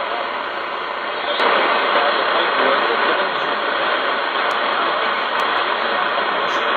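Shortwave static and hiss from a Malahit-clone SDR receiver tuned to an AM signal at 9.955 MHz, with its audio cut off at about 4.4 kHz by the receiver's filter. The noise grows a little louder about a second and a half in.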